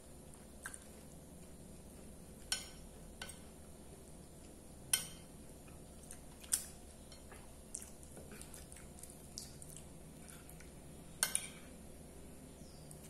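Metal spoon clinking and scraping against a ceramic plate, about eight sharp clicks spread irregularly, the loudest a double click near the end, with quiet chewing in between.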